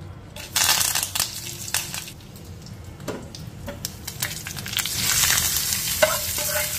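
Dried red chillies and curry leaves sizzling sharply as they drop into hot oil with browned cumin, the hiss fading within a second or two. From about five seconds in, a louder steady sizzle as the hot tempering is poured over ground tomato chutney.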